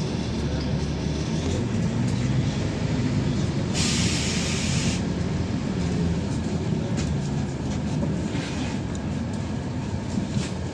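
Cabin noise of a LiAZ-5292.21 city bus under way: the diesel engine runs with a steady low hum over road rumble. About four seconds in comes a hiss of air lasting about a second, from the bus's compressed-air system.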